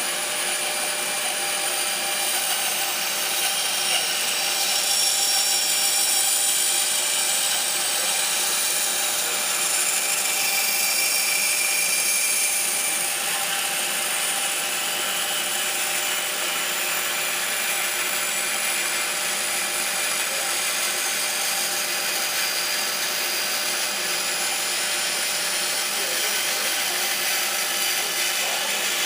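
Bandsaw running steadily, its blade cutting through a block of wood.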